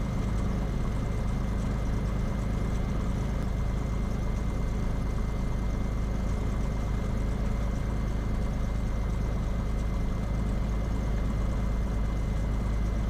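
Cessna 182 Skylane's piston engine and propeller idling steadily, a low even drone, as the aircraft holds short of the runway before takeoff.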